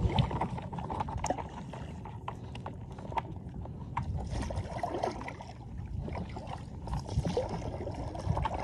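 Water splashing and lapping around a stand-up paddleboard as it is paddled, with scattered light knocks.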